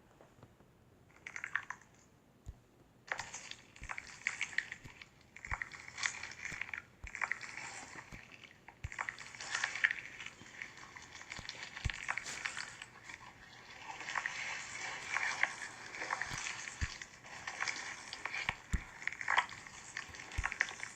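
Slime being squeezed and worked by hand, giving a dense run of small crackles and pops. It starts about a second in and is almost continuous from about three seconds on.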